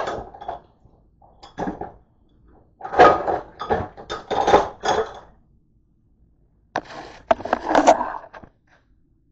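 Stoneware bowl and other dishes clattering and knocking against each other as the bowl is pulled out of a crowded dish drying rack, in four bursts of rattling with short pauses between, the longest in the middle.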